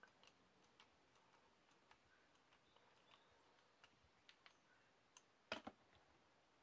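Faint small clicks and ticks of a screwdriver turning a small screw into a plastic transfer-case housing, with a louder double click about five and a half seconds in.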